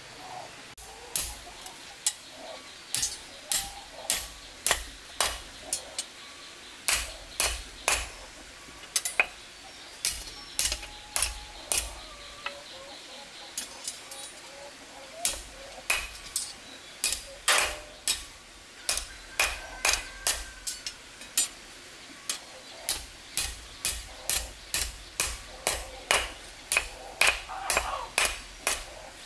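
A hand hammer striking something against a flat stone over and over, about two sharp blows a second, with a brief pause partway through.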